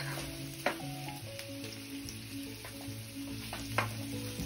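Chayote slices stir-frying in a wok: a steady sizzle, with a few sharp clicks of the spatula against the pan, two of them loud. A soft background melody plays under it.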